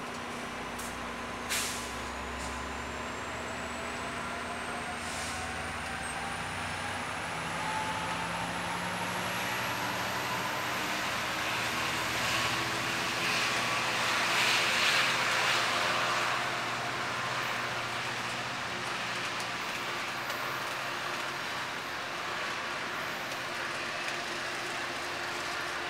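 Amtrak California bilevel passenger train pulling out and accelerating past, its whine rising steadily in pitch. It grows loudest a little past halfway as the cars roll by, then eases off. A brief sharp burst of noise comes about a second and a half in.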